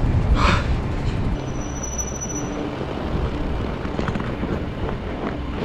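Loaded mountain bike ridden over a snowy dirt track: a steady rumble of tyres and wind buffeting the handlebar-mounted microphone, with a brief thin high tone for about a second near the start.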